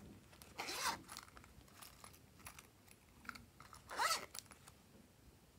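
Two short rasps as a silicone pop-it purse is handled, one a little under a second in and a louder one about four seconds in, with a few faint ticks between them.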